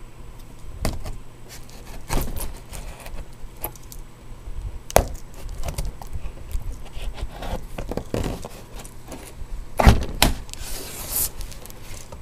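Cardboard shipping box being opened by hand: irregular knocks, scrapes and rustling, with a louder knock about 10 s in and a longer rustling hiss just after it.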